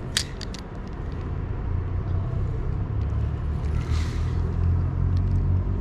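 A few sharp clicks in the first second as a spinning reel is handled, then the reel being wound in over a steady low rumble that grows stronger after about a second and a half.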